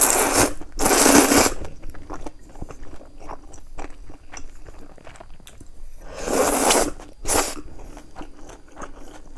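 Close-miked eating sounds: four loud bites or mouthfuls in two pairs, the first pair at the start and the second about six seconds in, with soft chewing clicks between.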